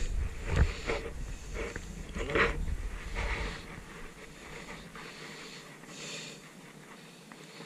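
Wind rumbling on the microphone, with a few short rustles and scuffs, dying away about four seconds in to a faint hiss.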